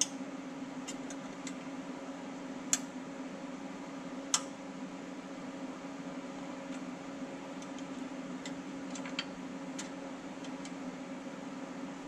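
Scattered light metallic clicks and taps of hands and tools working on bolts and a steel skid plate under a Jeep, the two sharpest a little under 3 and about 4 seconds in. Under them runs a steady low hum.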